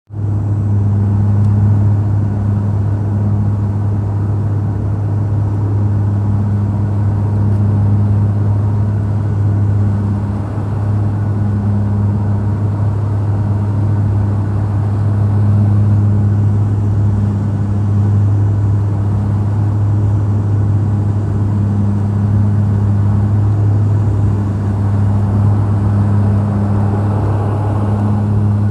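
Airliner cabin noise during the approach: a steady engine drone with a deep hum, a higher hum that wavers in and out every second or two, and a rushing of air that swells briefly near the end.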